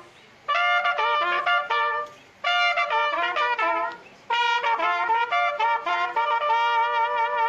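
A trumpet plays a tune in three phrases with short pauses between them. The last phrase ends on a long held note with vibrato.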